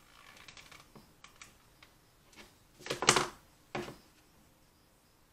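Small plastic clicks and taps from handling a hot glue gun and a snap-together plastic 18650 battery holder. A louder clattering rustle comes about three seconds in, followed by a single sharp knock.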